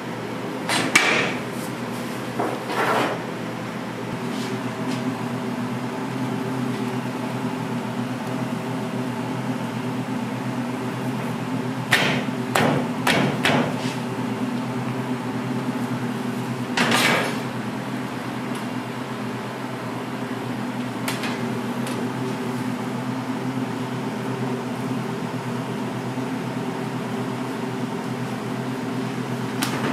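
A steady electric hum of kitchen equipment, with sharp knocks and clatter of tools and trays against a hard work surface: two near the start, a quick cluster of four or five a little before the middle, and one more just past the middle.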